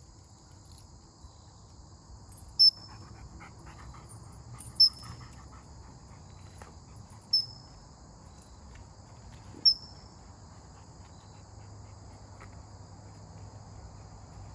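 Crickets chirring steadily, cut by four short, sharp, high-pitched chirps about two and a half seconds apart, the loudest sounds here.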